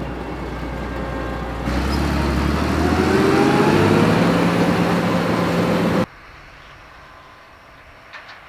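Combine harvester running and pulling away, its engine note rising in pitch and getting louder about two seconds in. The sound cuts off suddenly about six seconds in, leaving only a faint low hum.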